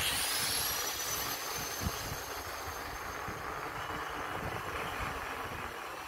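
Mountain bike rolling along a paved road: tyre noise and wind rumbling on the microphone, with a thin high whine that rises at the start and then holds steady.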